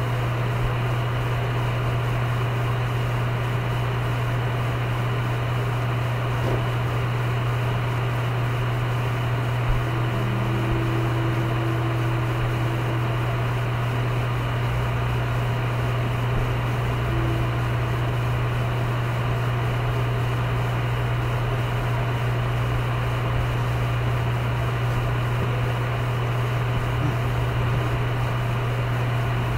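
A steady low hum under a constant hiss, with a faint click about ten seconds in.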